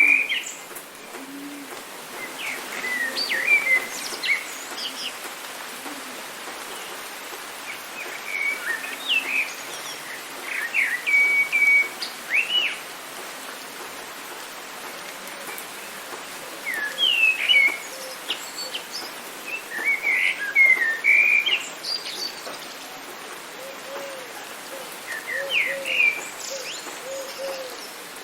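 Songbirds chirping and singing in short phrases every few seconds over a steady rain hiss. Near the end a low bird call starts hooting softly, over and over, about twice a second.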